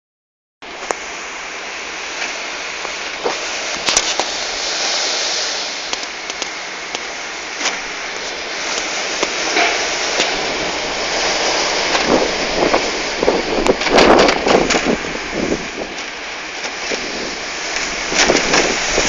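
Strong gusty wind, gusting over 70 km/h, rushing and buffeting the microphone, with scattered sharp clicks and knocks throughout. The gusts grow heavier in the second half.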